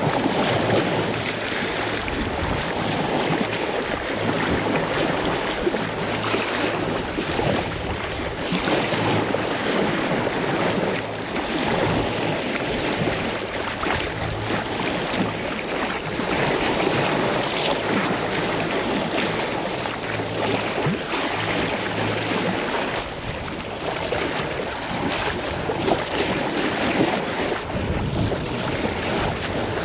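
Sea water rushing and splashing along a sailboat's hull under way, with wind buffeting the microphone.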